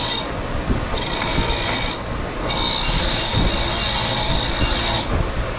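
Ryobi bench grinder running with a steel mower blade pressed against its spinning wheel to clean and touch up the blade. There is a harsh, high scraping hiss over a low motor hum, and it stops and starts as the blade is pressed on and lifted off. One pass ends just after the start, a short one follows about a second in, and a longer one runs from about two and a half seconds to near the end.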